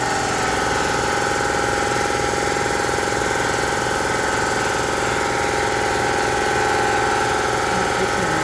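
A motor or engine running steadily at a constant speed, a continuous mechanical drone with a fixed hum and a fast, even pulse.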